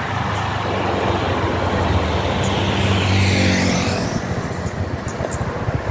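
A vehicle on the move: a steady low engine hum with tyre and road noise. About three seconds in, a passing vehicle briefly swells and fades.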